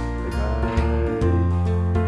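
Background music, with steady held notes and sharp new notes every half second or so.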